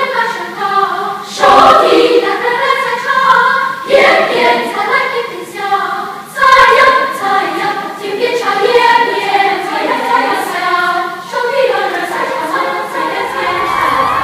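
School choir singing together in several voice parts, in phrases with short breaks between them.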